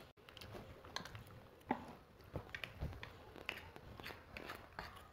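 Quiet eating sounds: metal forks clicking and scraping against plates of instant noodles, along with chewing. The clicks are short and scattered, and the sharpest comes a little under two seconds in.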